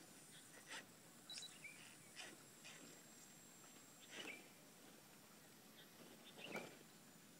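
Near silence: faint outdoor background with a few soft, scattered clicks and short chirps.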